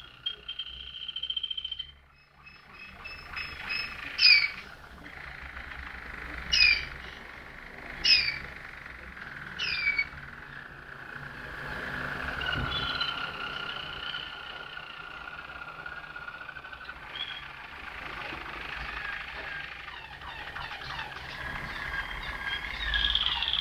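Malinois (Waterslager) canaries singing: long held whistled notes and rolling trills, broken in the first ten seconds by several loud, sharp notes that swoop downward.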